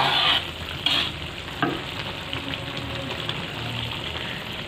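Sayur krecek sizzling in a pan, stirred with a spatula, with a few louder scrapes in the first two seconds and a steady crackling hiss after.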